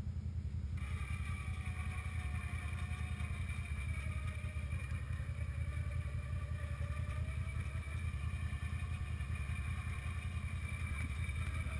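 Idling ATV engine rumble with an electric winch switching on about a second in and whining steadily as it reels in its cable, hauling a quad up a steep slope.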